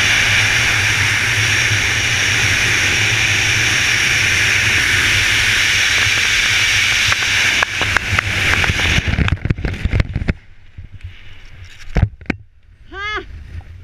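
Loud steady rush of freefall wind over the camera microphone during a BASE jump. About eight seconds in, the parachute opens with rapid fabric flapping and cracking, and the rush then drops away. Near the end a person gives a short rising-and-falling whoop.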